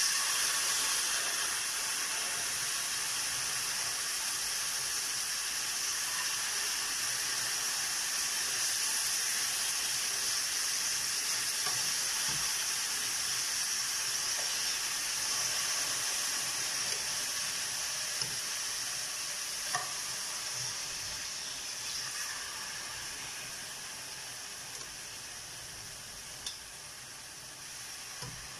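Marinated pork belly sizzling as the pieces fry in a little oil in a coated frying pan: a steady hiss that starts sharply as the first pieces go in and slowly fades toward the end. A few faint clicks.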